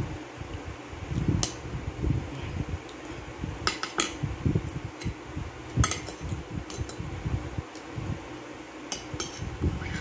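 Metal spoon and fork clinking and scraping against a ceramic plate while eating banana and ice cream, with sharp clinks in small clusters, one about four seconds in and another near the end. Soft eating sounds come between the clinks.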